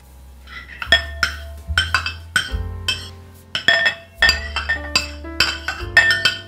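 Light instrumental background music: quick plucked, bell-like notes over a bass line that changes every second or so.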